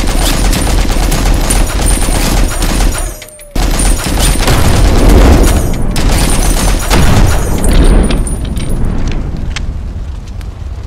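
Machine-gun fire sound effect: a long run of rapid shots, broken by a short pause about three seconds in, then tailing off near the end.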